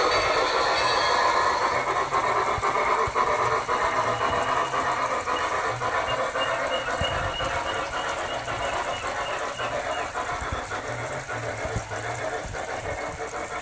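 Large-scale garden-railway model steam train running, its onboard sound unit playing locomotive sound over the clicking of wheels on the track, growing a little fainter as the train moves away.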